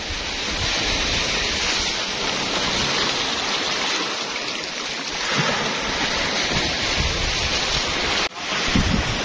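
Small waves washing up onto a sandy beach in a steady hiss, with wind buffeting the microphone in low rumbling gusts. The sound drops out briefly near the end.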